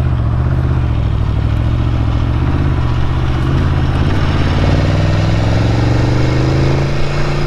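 Superbike engine running while riding, its pitch climbing steadily from about halfway through as the bike accelerates, with a brief dip near the end.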